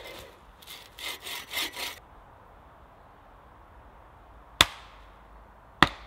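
A bow saw rasps through a dead Scots pine log in a quick run of strokes for about two seconds. Then a hatchet strikes twice, about a second apart, with sharp cracks splitting small pine pieces on a chopping block.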